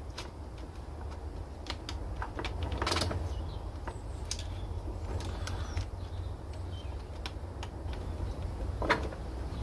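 Scattered clicks and rattles of a blade being fitted into a Ryobi jigsaw's blade clamp, with a louder rattle about three seconds in and a sharp click near the end.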